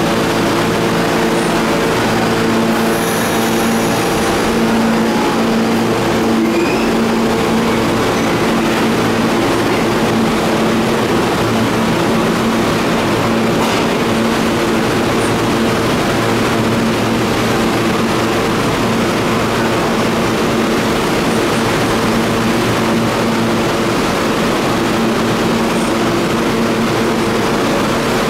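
Pullman-Standard R46 subway train pulling out of an underground station and running off into the tunnel, over a steady hum of several tones that holds throughout.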